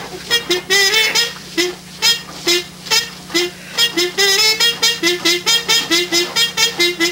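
Background music: a fast melody of short, separate notes, several a second, some runs stepping upward, over a steady low hum.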